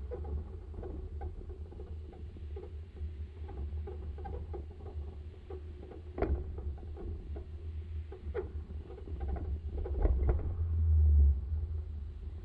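Vehicle driving along a concrete road: a steady low rumble with scattered light rattles and clicks. There is a sharper knock about six seconds in and another a little past eight seconds, and the rumble swells briefly past ten seconds in.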